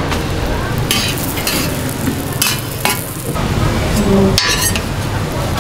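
Roti canai with egg and onion frying on an oiled flat iron griddle: a steady sizzle, with several short louder bursts spread through it.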